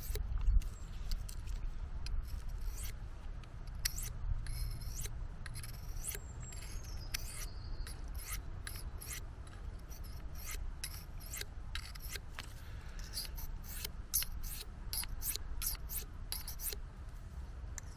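Victorinox Swiss Army knife blade drawn across a Fällkniven DC3 pocket whetstone in a run of short, irregular scraping strokes, about one or two a second, as the blunt edge is touched up.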